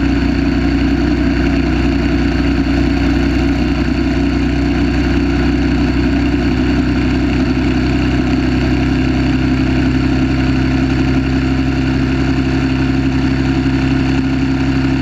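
1930 Terrot 350 HST's single-cylinder engine running hard at a steady pitch under racing load, heard from on board the motorcycle.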